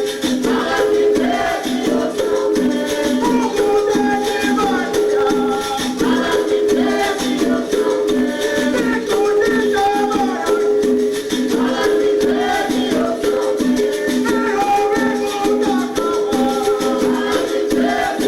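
Capoeira music playing: a shaken rattle over a steady, repeating two-note rhythm.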